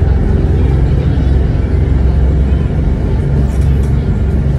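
Passenger boat under way: its engine running steadily and deep in the low end, with the propeller wash churning the water behind it.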